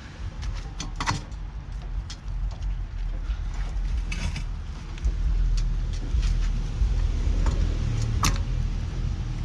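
Steady low rumble of a car on the move, louder from about halfway through, with scattered light clicks and rattles.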